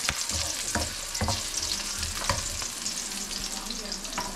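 Garlic and onions sizzling in hot oil in a wok, with a spoon scraping across the pan a few times as they are stirred.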